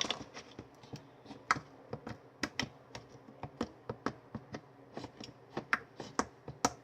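Homemade white-glue and liquid-soap slime worked by hand, making irregular sticky clicks and pops, a few each second. The slime is still sticky and not yet at full consistency.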